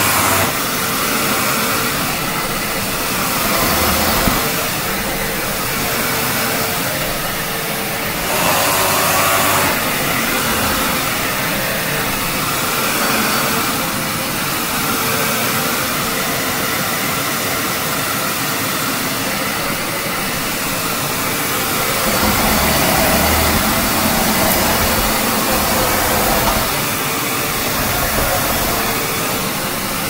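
A 2007 Hoover WindTunnel Twin Chamber bagless upright vacuum with a Maytag motor running steadily with a constant hum. Its rushing sound swells and eases as it is pushed back and forth over a rug.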